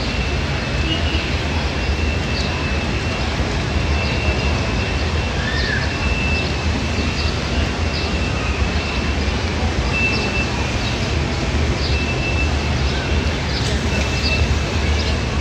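Steady open-air plaza ambience: a constant low rumble with background voices of people walking about, a faint high tone that comes and goes, and occasional short clicks or chirps.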